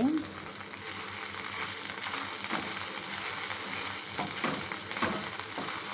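Boiled corn kernels frying in hot oil with chillies, garlic and capsicum, sizzling steadily, while a spatula stirs them with short scrapes now and then.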